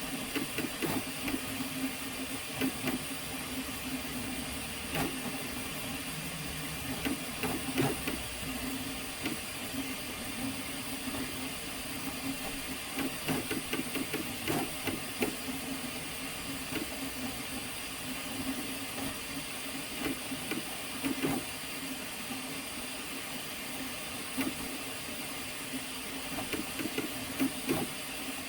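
FlashForge Adventurer 5M 3D printer running: a steady fan hum with hiss, broken by irregular short clicks and knocks.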